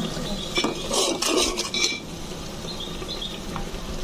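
Metal spoon scraping and clinking against an aluminium pot as salt is stirred into frying onion-garlic paste, in a cluster of scrapes from about half a second to two seconds in. A low sizzle of the frying paste runs underneath.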